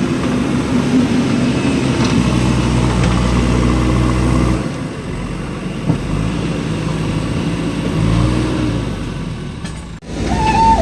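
Backhoe loader's diesel engine running under load while it works, its note dropping a little about halfway through and climbing again near the end, then breaking off abruptly.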